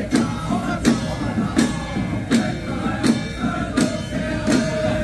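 Music with a steady beat, a percussion strike about every three-quarters of a second, under a wavering melody line.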